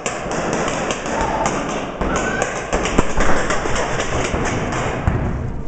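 Paintball markers firing: a rapid, irregular string of sharp pops from several guns, mixed with thumps from the camera being jostled as its holder moves.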